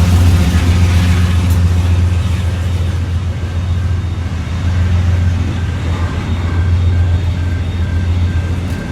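Train running past with a loud, steady low engine drone. From about a third of the way in, a high beep repeats about twice a second.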